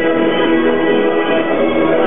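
Carousel music playing loudly during the ride, with many notes held together.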